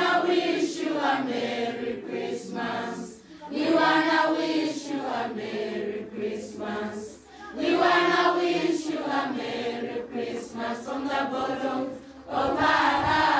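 A large group of children and young people singing together in unison. The song comes in repeated phrases about four seconds long, each starting loud.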